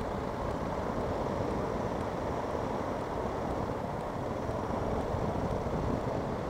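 Steady wind rush over the microphone with road and engine noise from a motorcycle riding along at a constant pace.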